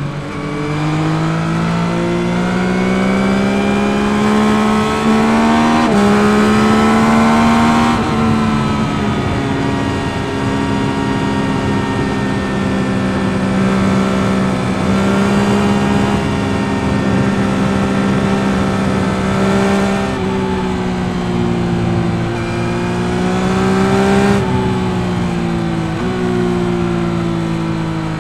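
2021 Yamaha MT-09's 890 cc CP3 inline-three engine under riding load. Over the first eight seconds it revs up and drops sharply in pitch at each upshift, then holds a steady pitch for a long stretch. Near the end it pulls up again with another shift before easing off.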